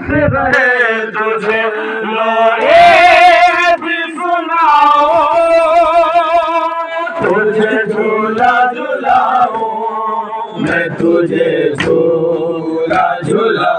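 A man chanting a noha, a Muharram lament, into a handheld microphone, in a wavering, heavily ornamented melody. About halfway through, the melody drops to a lower register.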